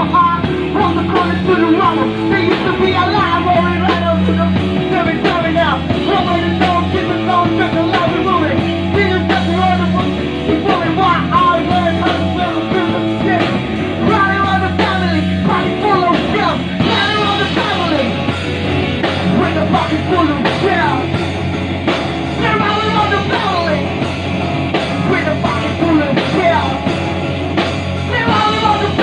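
Live rock band playing loudly and steadily: electric guitar and drum kit, with a singer singing into a microphone over them.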